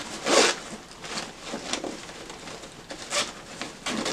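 Zipper and fabric rustle of a gym duffel bag's shoe pocket being opened by hand: a few short scraping rustles, the loudest about half a second in.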